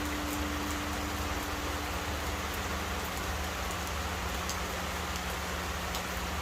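Steady rain falling, under the long fading hum of a large Korean Buddhist temple bell. Its higher tone dies away about halfway through while a low hum lingers on.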